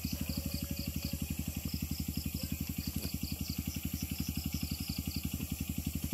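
A small engine idling with a steady, even low pulse of about a dozen beats a second.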